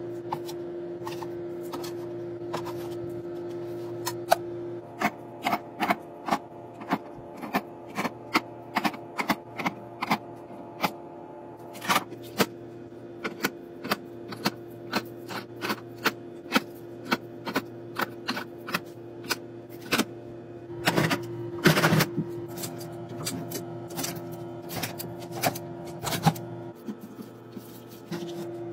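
Groceries being set by hand into clear plastic fridge organizers: a string of sharp plastic clicks and clacks, about one or two a second, over a steady low hum. A longer scraping rustle comes about two-thirds through.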